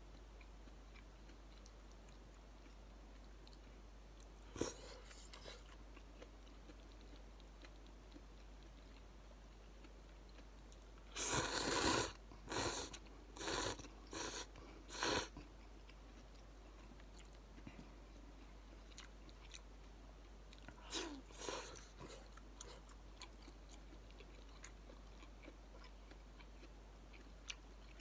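A person slurping noodles from a bowl. There is one long slurp about eleven seconds in, then three short ones, and another pair of slurps later on. Quiet chewing comes between them.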